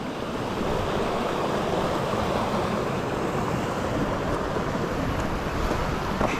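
Steady rushing of a river flowing close by, an even wash of water noise with no pauses.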